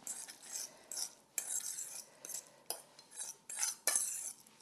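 A utensil scraping and clinking against a stainless steel mixing bowl as a tuna salad is stirred, in a run of irregular strokes.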